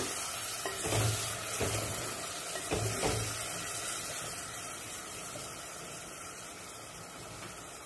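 Onion-tomato masala in a clay pot sizzling after water has been added, stirred with a wooden spatula that knocks and scrapes a few times in the first three seconds. The sizzle slowly dies down.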